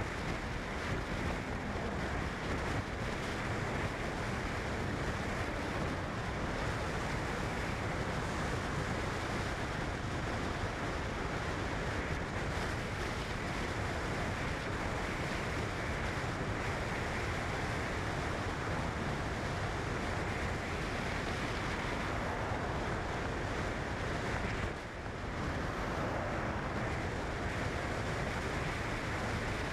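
Steady rushing noise like wind or surf, dipping briefly a few seconds before the end.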